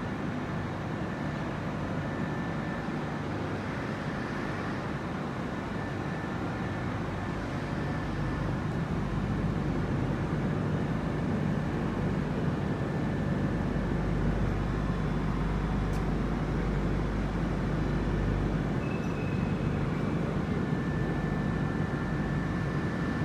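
Steady drone of running industrial machinery, strongest in the low range, growing a little louder about eight seconds in, with a faint steady high whine over it.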